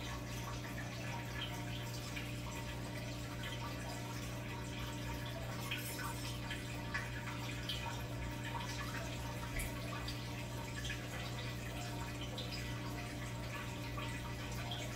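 Aquarium filter returning water into the tank: a steady trickle with scattered drips over a steady low hum.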